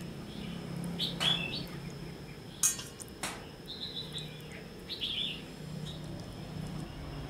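Small birds chirping in the background, with short repeated chirps. A few sharp wet clicks and splashes come from hands handling a raw pig brain over a steel basin of water; the loudest is about two and a half seconds in.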